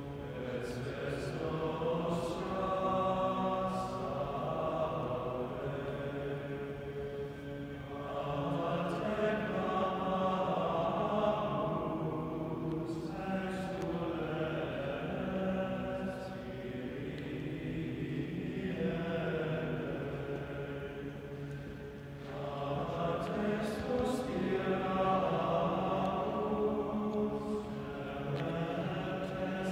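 A men's schola singing unaccompanied sacred chant, in long sustained phrases with short breaks between them. About two-thirds of the way through it thins to a quieter passage before the full sound returns.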